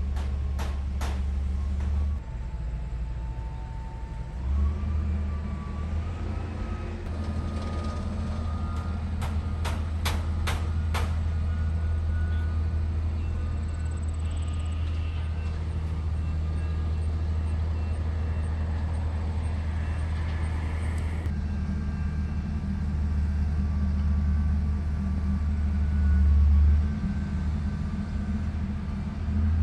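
Motor vehicle running with a steady low engine and road hum. Two short runs of sharp clicks, about three a second, come near the start and about a third of the way in.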